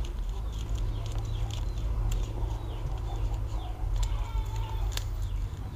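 A plastic opening card prying along the seam of a Poco X3 NFC's glued back glass, giving a few sharp clicks as it works through the adhesive. Under it there is a steady low hum, and chickens cluck faintly in the background.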